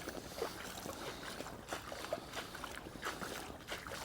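Footsteps in boots crunching over ice and frozen ground, a sharp crackle with each step at a steady walking pace.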